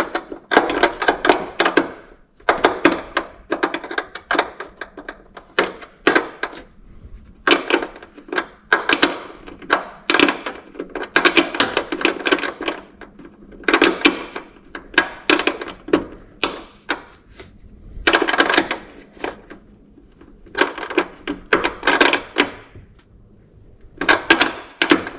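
Hand wire crimping tool clicking as wire terminals are crimped, in repeated bursts of rapid sharp clicks about a second or two long.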